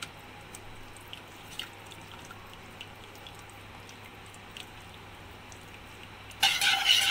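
Silicone spatula stirring a thick, lumpy flour-and-milk white sauce in a nonstick pan: faint wet stirring sounds with small scattered ticks. About six seconds in, a metal wire whisk starts scraping and rattling in the pan, much louder.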